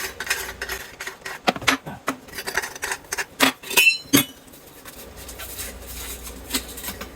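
Metal sink-strainer parts clinking and knocking in a kitchen sink as a basket strainer is fitted into the drain opening, a string of sharp clicks with one brief metallic ring, then quieter handling for the last few seconds.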